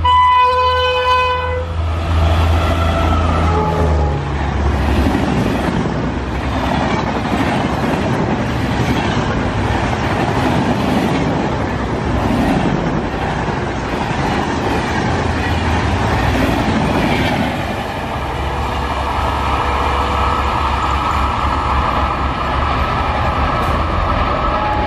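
WAP5 electric locomotive sounding its horn for the first two seconds, then passing at high speed with a low hum and a whine. Its air-conditioned coaches follow in a long rush of wheel noise with rhythmic clatter over rail joints. A steady whine and hum come back over the last several seconds as the train draws away.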